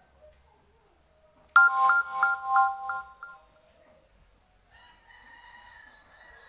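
A short, loud chiming tune of about six quick repeated notes, starting suddenly about a second and a half in and dying away over under two seconds. A fainter, steady tonal sound follows near the end.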